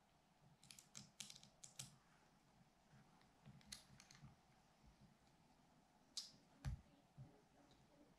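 Faint, scattered clicks and taps of small screws and a metal Picatinny rail being handled and screwed down onto a night-vision scope unit, with a duller knock about two-thirds of the way through.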